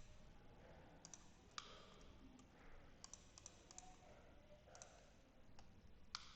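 Faint, scattered clicks from a computer mouse and keyboard over quiet room tone, about a dozen in all, with a quick run of several about halfway through.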